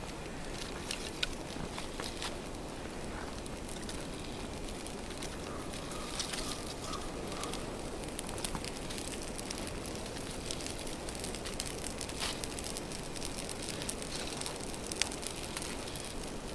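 Freshly lit birch-bark tinder burning under a small stack of pine twigs, with a steady hiss and many small crackles.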